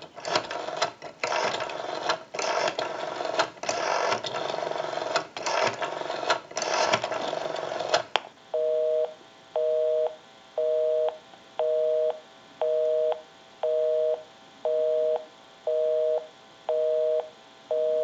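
ITT 554 rotary wall telephone's dial being turned and spinning back digit after digit, with clicks, for about the first eight seconds. Then a busy signal comes over the line: a two-tone beep about once a second, ten times, because the number dialed is engaged.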